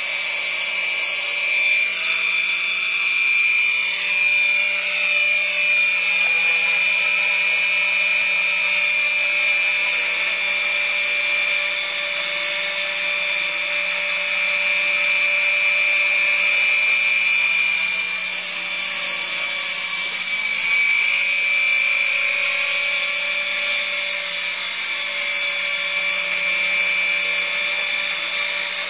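Walkera 4F200LM radio-controlled electric helicopter flying, its motor and rotors making a steady high-pitched whine. The tone sweeps up and down now and then as the helicopter lifts off and moves about.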